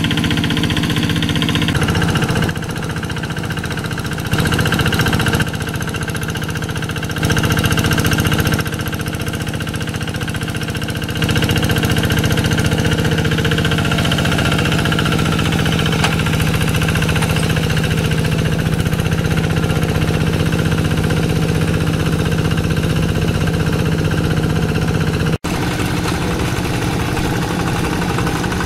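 Single-cylinder Kubota diesel engine of a Quick G3000 walking hand tractor running under load as it drags cage wheels through paddy mud. Its note is steady, with abrupt jumps in level several times.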